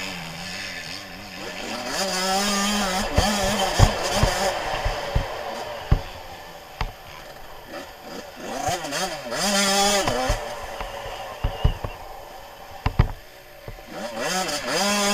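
Suzuki RM 85's small two-stroke single-cylinder engine heard on board, revving hard in repeated bursts with the pitch climbing and dropping, and falling back between bursts. Several sharp knocks cut through.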